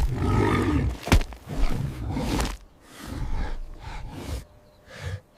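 Low, rough animal growling in several stretches, with a single sharp crack about a second in, fading to quiet near the end.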